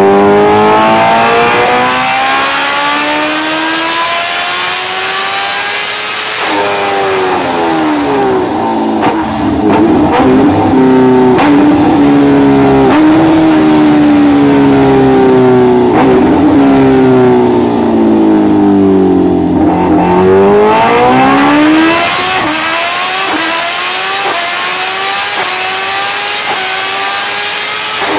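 Kawasaki Ninja H2R's supercharged inline-four running hard on a rolling-road dyno. Its pitch climbs for about six seconds and drops sharply at a gear change. It then holds high and slowly falls for some ten seconds before climbing again near the end.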